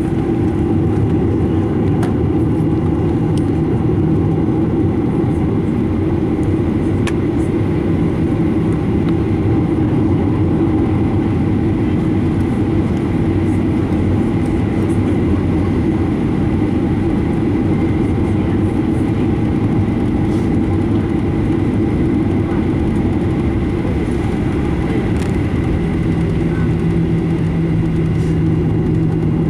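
Steady jet engine roar of a Boeing 737-900ER heard from inside the passenger cabin, with a faint steady whine above the low rumble.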